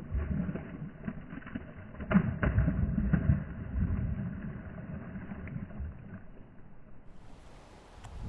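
A hooked pike thrashing and splashing at the surface of a canal while being played on a lure. There are sharp splashes around two to three seconds in over a low rumble, and it settles down near the end.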